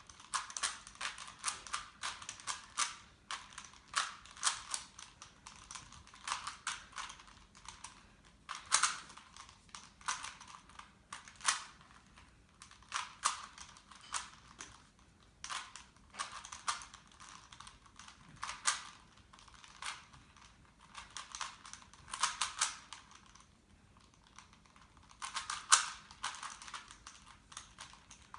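Rubik's Cube being turned quickly by hand while speed-solving: rapid clusters of plastic clicks and clacks from the layers snapping round, with short pauses in between.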